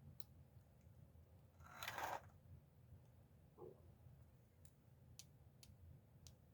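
Faint handling of a gold-tone metal bracelet: a few light, sharp clicks spread out, with a brief rustle about two seconds in, against near silence.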